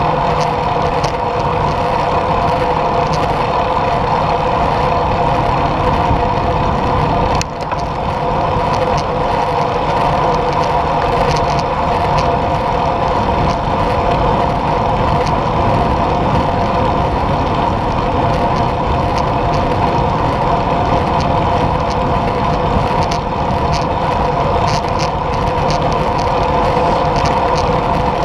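Steady riding noise of a road bicycle at speed: tyres rolling on rough asphalt and wind over the handlebar camera, with a steady hum and light scattered ticks. The noise dips briefly about seven seconds in.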